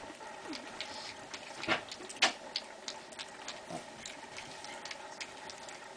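Pekingese puppies eating from a bowl: irregular soft clicks and smacks of chewing and lapping, with a couple of louder clicks about two seconds in.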